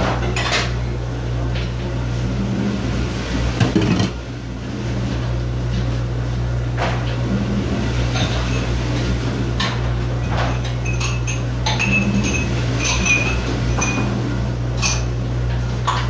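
Dishes and cutlery being handled at a kitchen dish station: scattered knocks and clatters, one louder clatter about four seconds in, and short ringing clinks of crockery or glass later on, over a steady low machine hum.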